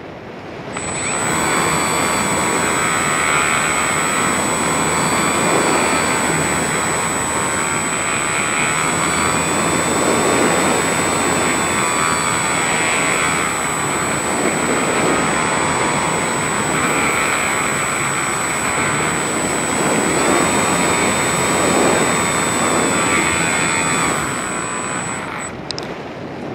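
Electric motor and folding propeller of a Volantex Phoenix 1600 RC motor glider running under power, a steady high whine over wind rushing past the onboard camera. The motor starts about a second in and cuts off near the end, leaving only wind noise.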